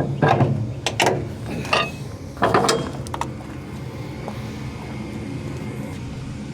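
A truck pulling a loaded log trailer: a few sharp clanks and rattles in the first three seconds over the engine's steady low drone, which then carries on alone.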